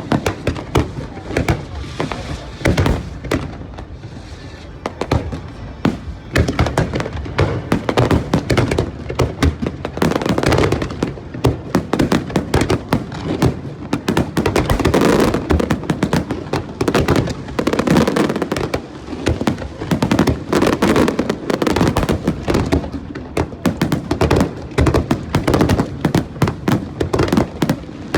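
Aerial fireworks display: a dense, rapid barrage of shell bursts and crackling bangs, one on top of another, with music playing underneath.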